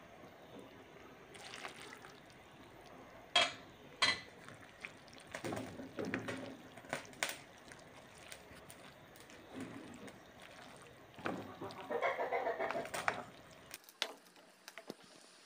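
A spoon stirring trida pasta squares in a pot of broth, wet and sloshing in several stretches, with two sharp knocks against the pot about three and four seconds in.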